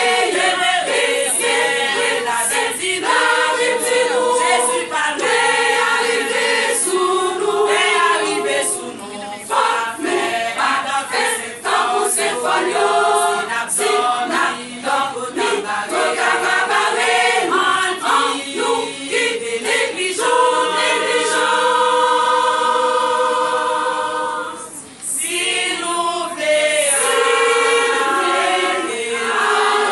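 Women's church choir singing a gospel hymn in Haitian Creole, several voices in harmony, holding long chords for a few seconds about two-thirds of the way through, with a short break in the singing near the end.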